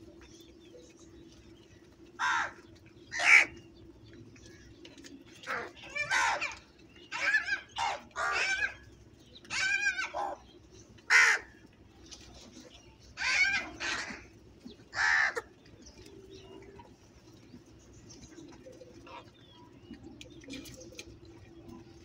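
House crows cawing: a dozen or so harsh caws, some close together, between about two and fifteen seconds in. After that only faint calls.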